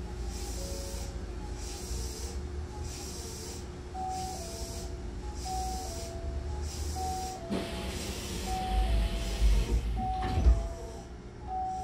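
Train door-closing chime, a two-note high-low tone repeating about every second and a half over a steady hum, as the car's sliding doors close. About ten seconds in, the doors shut with a thump.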